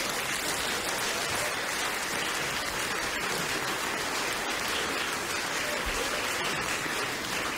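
Audience applauding steadily, a dense crackle of many hands clapping, with laughter mixed in.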